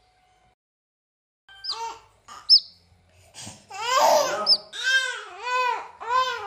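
A newborn chick peeping in a few short, high cheeps, the loudest about two and a half seconds in. From about four seconds a young child cries in a run of rising-and-falling wails, each about half a second long.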